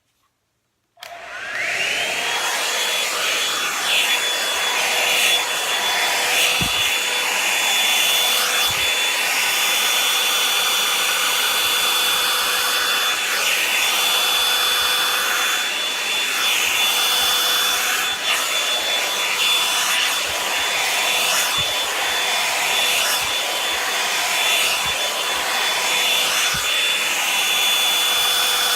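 Revlon hair dryer brush switching on about a second in, its motor whine rising as it spins up, then running steadily with a high whine over the rush of air.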